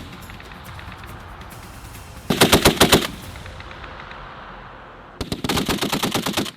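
M2A1 .50-caliber heavy machine gun firing two bursts of rapid shots. The first, short burst comes about two seconds in. The second, longer one starts near the end.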